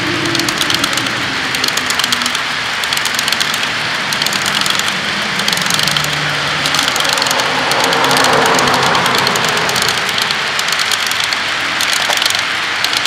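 A long string of HO-scale model boxcars rolling past on track, their small wheels clicking rapidly over a steady rumble, swelling a little about eight seconds in.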